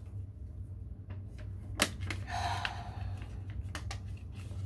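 Quiet room with a steady low hum. One sharp click comes a little under two seconds in, followed shortly by a soft hiss and a few faint ticks.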